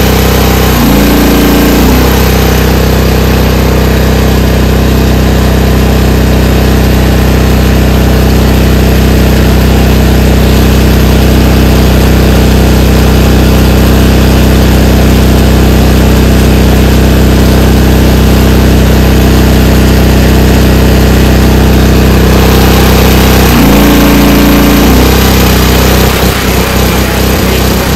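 Huayee HY14C mini excavator's engine running steadily with the throttle raised, while the hydraulics are held at full pressure against the relief valve to set it. The engine note shifts briefly about a second in and again near 24 seconds.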